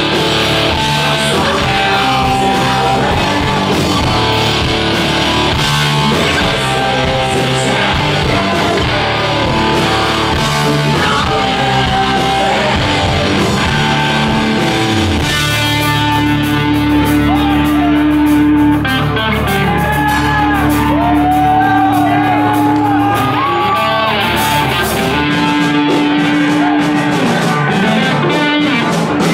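Heavy rock band playing live, with loud distorted electric guitars, bass and drums in a large hall. About halfway through, the playing thins out into long sustained guitar notes with bends.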